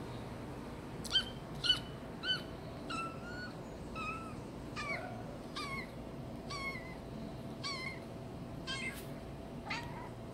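Kitten mewing a string of about a dozen short, high-pitched mews, the first three loudest and close together, then softer ones roughly once a second: complaining at being woken from sleep.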